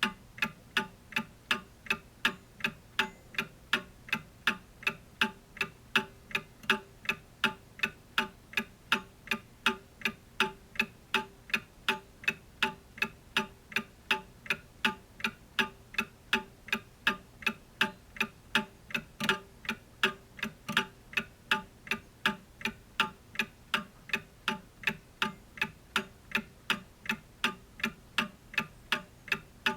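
Clock ticking, steady and evenly spaced.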